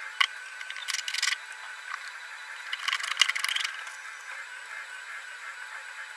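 Hard 3D-printed plastic parts of a filament spooler assembly clicking and rattling as they are handled and fitted together, with short bursts of clatter about a second in and around three seconds in, over a steady background hiss.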